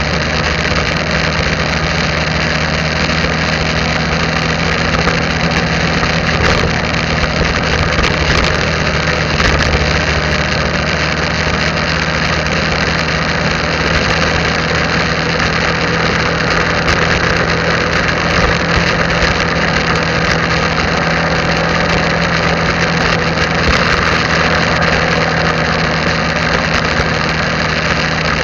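Motorbike engine running steadily at cruising speed, with steady wind and road noise.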